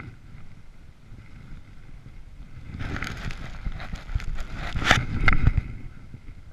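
Close rustling and scraping of jacket fabric and gear against the camera, with a few sharp knocks, starting about three seconds in and lasting about three seconds.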